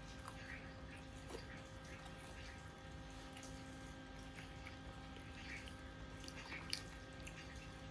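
Faint scattered small clicks and ticks over a steady low hum, with one sharper click near the end.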